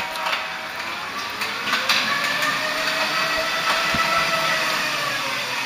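Electric drive motor and transaxle gearbox running under test: a whine that rises in pitch, holds, then falls away near the end, over a rough grinding clatter with a few knocks. The grinding comes from the gearbox, which the owner judges to be faulty.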